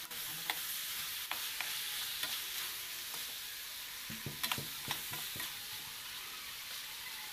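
Fish pieces frying in a pan with a steady sizzle, while a metal spatula stirs them, scraping and clicking against the pan, most often around four to five seconds in.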